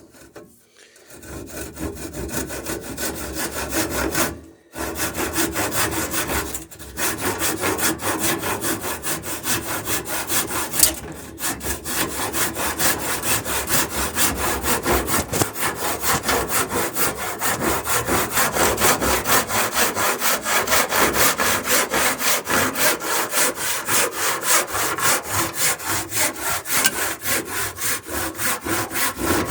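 Hand saw cutting off the surplus end of a wooden boat plank in steady back-and-forth strokes, with a few short pauses in the first dozen seconds.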